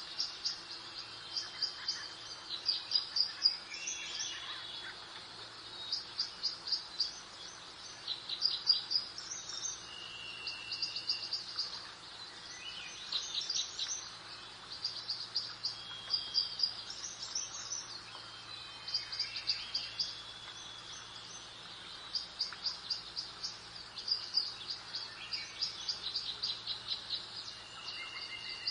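Songbirds singing: short trilled and chirping phrases, repeated every few seconds, over a soft steady background hiss of breeze.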